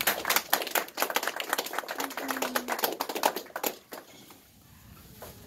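Audience applauding, many quick irregular claps that die away about four seconds in.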